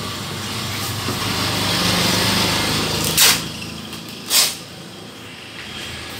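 Ricoh copier's internal motors and fans whirring steadily, swelling about two seconds in, with two sharp clacks a little over a second apart.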